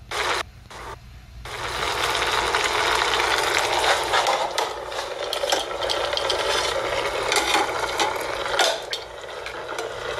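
Food sizzling in a hot pan on a stovetop: a steady crackling hiss that sets in about a second and a half in, after a few brief choppy snatches of sound.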